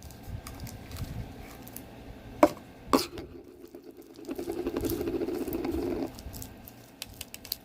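Sticky homemade slime being squished and kneaded by hand in a bowl, with small wet clicks throughout. There are two sharp knocks about two and a half and three seconds in, then a louder, rough squelching stretch of about two seconds.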